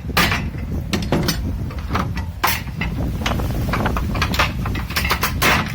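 Hammer blows breaking open the plastic housing of a Ryobi electric tiller: about a dozen sharp, irregularly spaced strikes.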